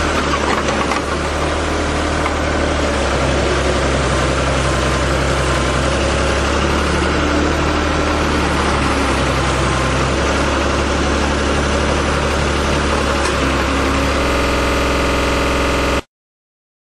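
Diesel engine of a tractor-mounted backhoe loader running steadily. The sound cuts off abruptly near the end.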